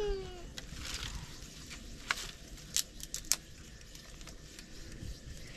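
Dry sticks and brush being handled, with scattered sharp snaps and crackles over a low rustle. A short falling vocal sound comes at the very start.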